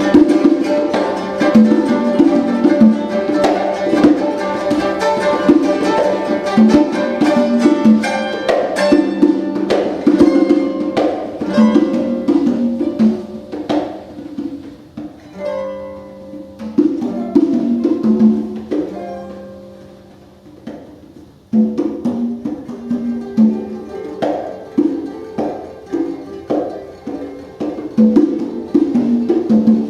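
Free improvised music: hand-drum strokes and plucked string notes, playing densely, then thinning and fading through the middle before picking back up abruptly about two-thirds of the way in.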